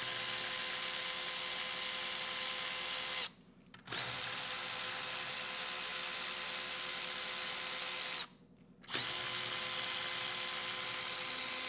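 Cordless electric ratchet running bolts down into an automatic transmission housing, with a steady motor whine. It runs in three stretches of about four seconds each, with short pauses about three seconds in and again about eight seconds in.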